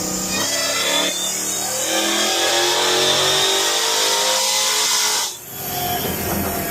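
Whipple-supercharged Hellcat 6.2 L Hemi V8 making a full-throttle pull on a chassis dyno, its note climbing steadily in pitch for about five seconds. The throttle then closes suddenly and the engine drops back to a lower, steadier note.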